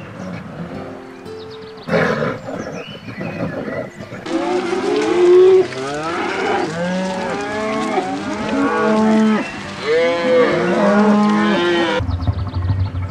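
Several cattle mooing, their drawn-out calls overlapping, from about four seconds in until shortly before the end, when steady music notes take over. Before the mooing, soft music with held notes and a loud rough animal call about two seconds in.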